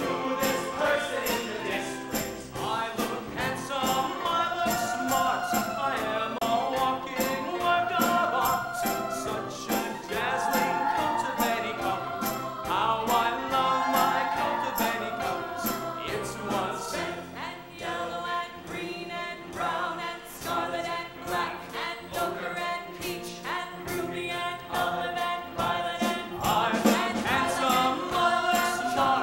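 Musical-theatre cast singing together over a pit band with a quick, steady beat. The voices drop away for several seconds past the middle, leaving the band, and come back in near the end.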